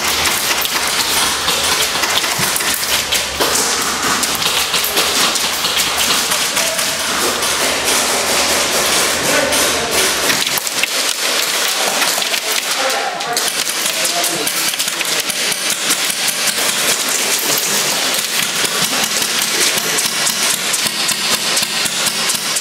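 Dense, continuous clatter of airsoft gunfire and pellet impacts, many sharp clicks and pops close together, with indistinct voices underneath.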